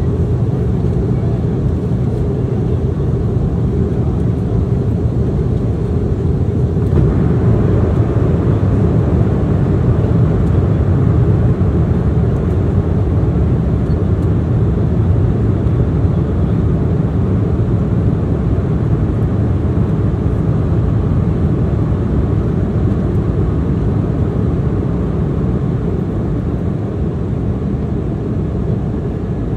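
Steady cabin noise inside a Boeing 717 in flight: the rush of air and the drone of its Rolls-Royce BR715 engines. About seven seconds in, a higher hiss joins and the noise grows a little louder.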